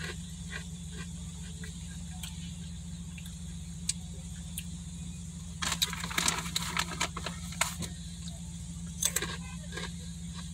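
Crunchy chewing of thin, fried potato-stick snacks, with bursts of crackling crunches about six seconds in and again near nine seconds, over a steady low hum inside a car.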